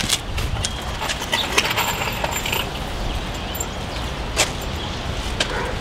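Light clicks and taps from the frame of a vinyl retrofit window being handled and pressed into its opening, scattered over a steady outdoor background of hiss and low rumble.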